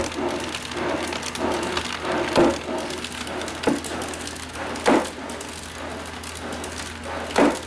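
Homemade magnet torque amplifier rig running, turned by a gearhead motor: a steady low hum with a sharp knock about every second and a quarter. The knock is the reciprocating magnet slider hitting at one end of its stroke, which the builder takes for one side being a little weaker than the other and for wasted energy.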